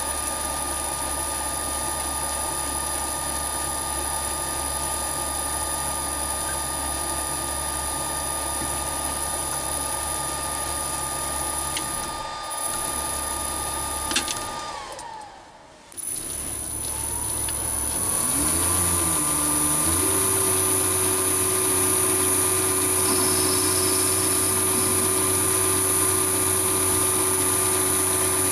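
Chinese mini lathe's motor and spindle running steadily, with a steady hum and whine. About halfway through the whine slides down as the lathe winds down and stops. It then starts again, its pitch rising as it comes up to speed, and runs steady and a little louder.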